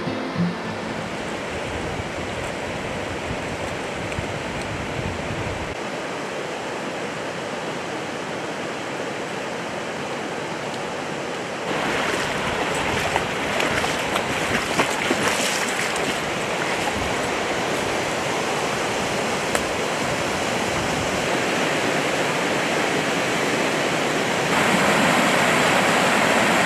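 River rapids: whitewater rushing steadily over rocks, louder about twelve seconds in and louder again near the end.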